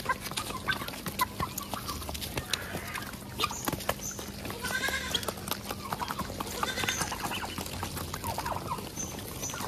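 A flock of Muscovy and Pekin ducks, a turkey and guinea fowl pecking grain off a concrete floor: a steady patter of quick bill taps on the ground, with a few short bird calls about halfway through.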